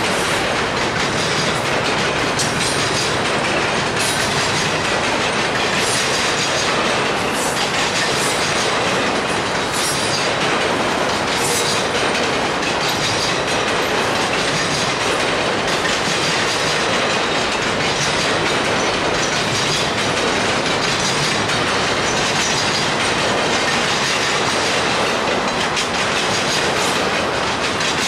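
A double-stack intermodal container train's well cars rolling past, their steel wheels on the rails making a steady, unbroken noise.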